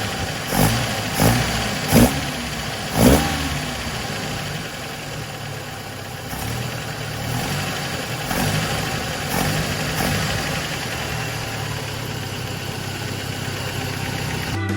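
Datsun 510's L16 four-cylinder engine on a Solex carburettor, running at idle. There are a few sharp blips in the first three seconds, then it runs steadily, without the stumble it had before the carburettor work.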